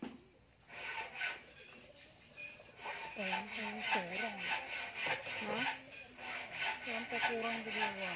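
Rhythmic rasping strokes, about two a second, of a gloved hand combing and brushing hair dye through wet hair. A faint voice wavers in the background from about three seconds in.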